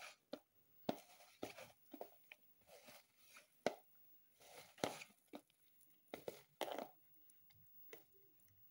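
A hand mixing and squeezing drumstick flowers into a stiff gram-flour batter in a plastic bowl: faint, irregular short sounds of the flowers and flour being pressed and tossed against the bowl.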